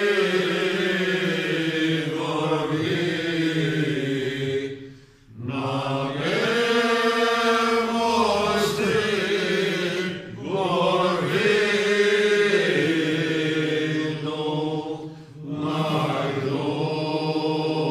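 Unaccompanied male voices singing a Cretan rizitiko song in long, drawn-out phrases with slow gliding ornaments on the notes, pausing briefly for breath about five, ten and fifteen seconds in.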